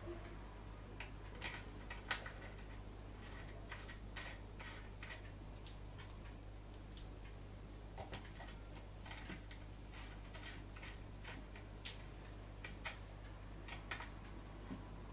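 Scattered small clicks and taps of scope-mount parts and tools being handled, irregularly spaced, the sharpest about a second and a half in and again about eight seconds in.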